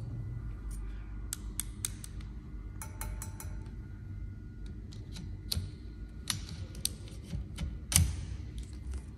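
Small plastic clicks and rattles of a flat wiper blade's connector being handled and fitted onto the wiper arm's hook, with a louder snap about eight seconds in, over a low steady hum.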